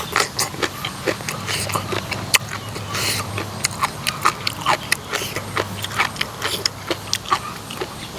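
Close-miked chewing and lip smacking from a person eating spicy papaya salad with pickled salmon and shrimp: many quick, irregular wet clicks and smacks.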